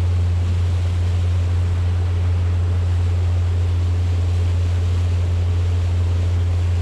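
Small motorboat under way at speed: its engine running as a steady low drone, with water rushing and splashing along the hull.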